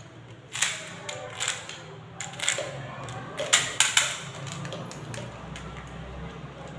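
Crinkling and crackling of plastic candy wrappers as they are handled and opened, a string of sharp crackles over the first four seconds.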